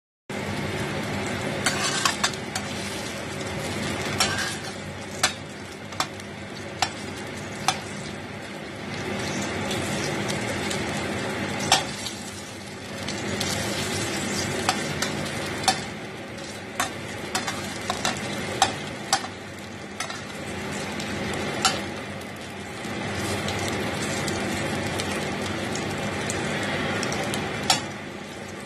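Food frying with a steady sizzle in a stainless steel pan, swelling and easing, while a metal spatula turning the pieces clinks sharply against the pan many times at irregular moments.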